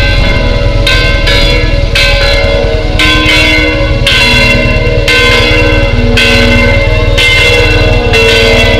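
Church bells ringing, a quick uneven run of strikes of several different pitches, each left ringing, over a steady low rumble.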